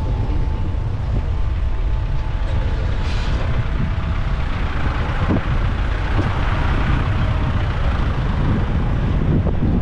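Steady low engine rumble with a constant rushing noise, as from a moving vehicle or boat underway.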